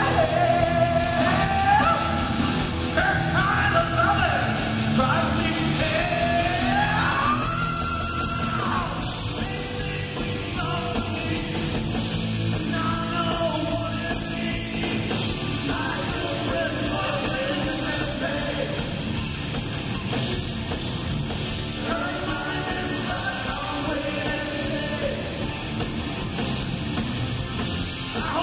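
Live hard rock band playing loud: shouted, sung lead vocals over distorted electric guitars and drums for the first several seconds, then the voice drops out and the band plays on instrumentally.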